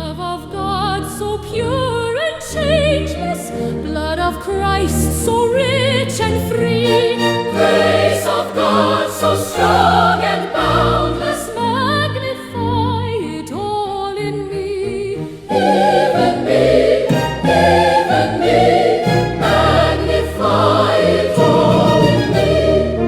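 Choir singing a hymn with vibrato, over sustained instrumental accompaniment.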